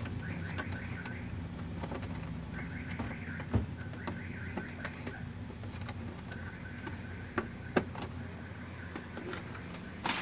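A few small plastic clicks as wire-harness connectors are pulled from a Brother inkjet printer's main circuit board. A steady low hum runs underneath, and a faint wavering high tone comes and goes.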